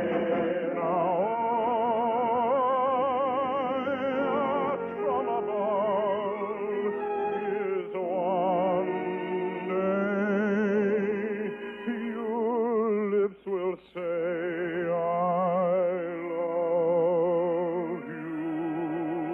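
Operatic-style singing with a wide vibrato over orchestral accompaniment, from a 1950 radio broadcast recording, with a short break about thirteen seconds in.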